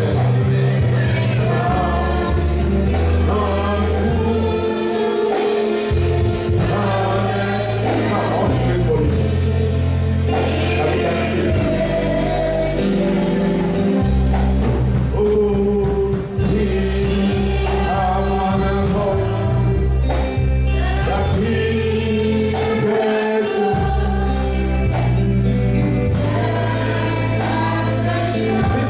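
Gospel choir singing with a band: steady bass line, a regular beat and sung melody.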